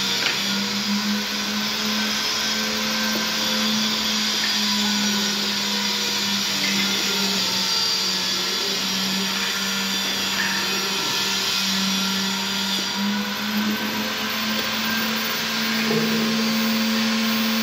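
Steady mechanical hum of a running motor, holding one pitch throughout with only slight wavering.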